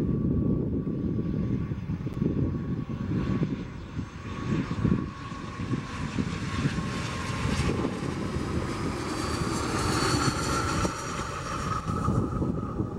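Airbus A319 jet airliner on final approach: its engines give a low rumble with a steady whine that grows louder as the aircraft passes close, strongest about ten seconds in, then easing.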